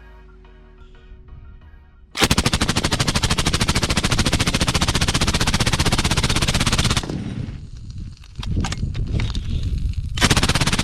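Faint background music, then about two seconds in an M240B machine gun with a Dead Air Sandman S suppressor opens up in sustained full-auto fire, many shots a second. The fire breaks up into scattered shots for a few seconds in the second half, then resumes at full rate near the end.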